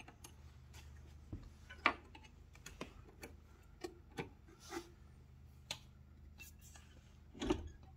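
Scattered light metallic clicks and clinks of a roller chain being threaded by hand onto the electric traction motor's drive sprocket, the links knocking against the sprocket and its guard; the sharpest click comes about two seconds in and a heavier knock near the end. A faint steady low hum runs underneath.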